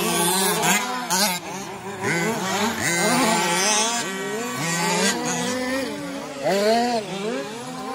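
Engines of several 1/5-scale 4WD radio-control racing trucks running together, each revving up and down as the trucks accelerate and brake around the track.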